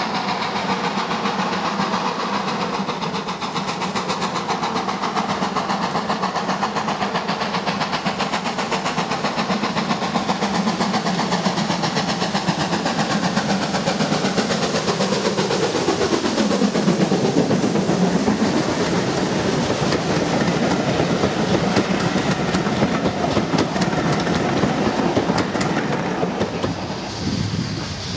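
GWR Manor class 4-6-0 steam locomotive No. 7822 'Foxcote Manor' running past with its train, wheels clattering over the rails. It grows louder and drops in pitch as it passes, about halfway through.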